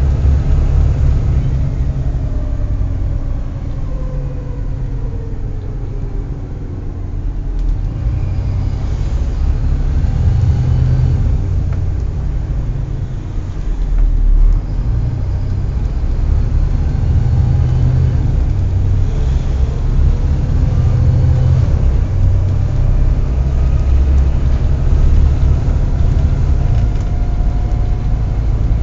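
Volvo B7TL double-decker bus's diesel engine running under way, heard from inside the bus: a deep, pulsing rumble with faint whines that rise and fall in pitch. There is a low thump about halfway through.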